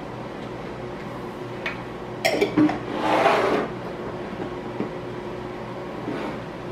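Microwave oven running with a steady hum while it heats olives. About two and a half seconds in there is a short clatter of knocks, and right after it a brief rushing noise.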